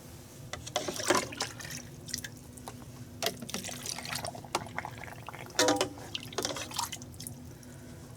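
Vinegar brine being poured into a quart canning jar packed with sliced cucumbers, liquid splashing and dribbling unevenly, with scattered clicks and knocks of glass and utensils.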